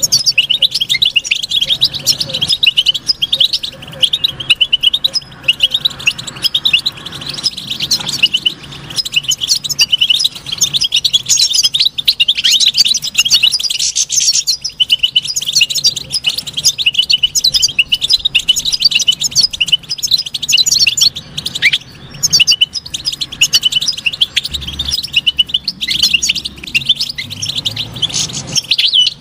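European goldfinch song: a dense, unbroken run of rapid twittering chirps and trills.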